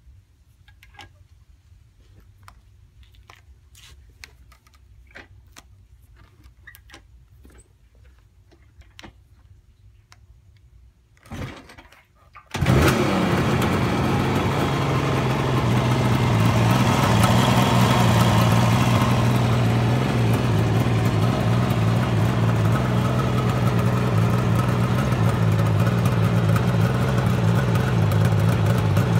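Faint clicks and handling sounds, a short louder noise about eleven seconds in, then a 1972 Kawasaki H2's 750 cc air-cooled two-stroke triple fires up about twelve and a half seconds in and idles steadily for the rest of the time.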